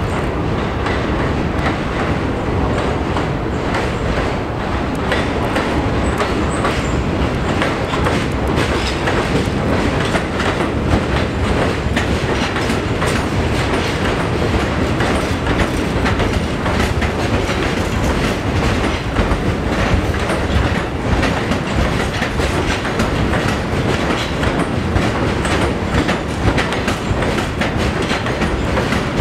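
New York City Subway train running along an elevated station platform: a steady, loud rumble of wheels and motors, with a constant patter of clicks from the wheels over the rail joints.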